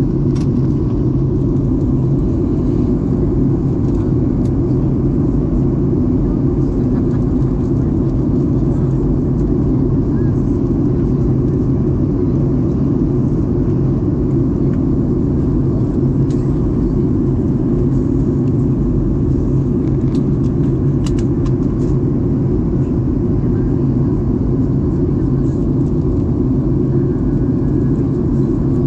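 Steady cabin noise inside a Boeing 737-800: a constant low rumble of the CFM56 jet engines and airflow, with a few faint clicks about two-thirds of the way through.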